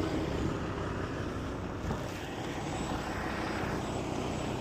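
A truck's engine running with a steady drone.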